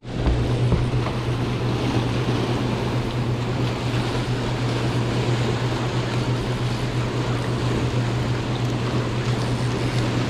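Turbulent white water churning and rushing out below a dam's running turbine, against the concrete wall, with a steady low hum underneath.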